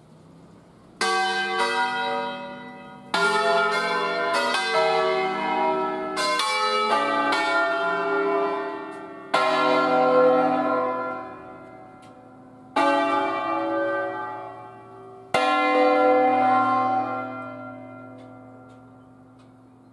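Bronze church bells of an eight-bell peal in C, swung full circle on wheels and rung by hand: a quick irregular run of about a dozen strokes in the first half, then single strokes about three seconds apart, the last one ringing on and fading away.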